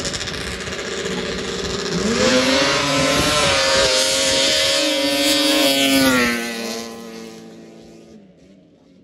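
Two snowmobiles drag racing on grass, their engines climbing in pitch as they launch about two seconds in and holding at high revs, then fading over the last few seconds as the sleds pull away down the strip.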